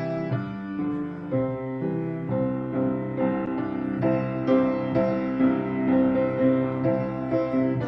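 Piano music, a slow melody with sustained chords.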